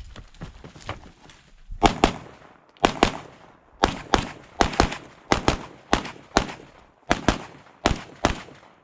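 Gunfire from a competitor shooting a match stage: after a few faint pops, loud shots start about two seconds in and come mostly as quick pairs, about a pair each second, some sixteen shots in all.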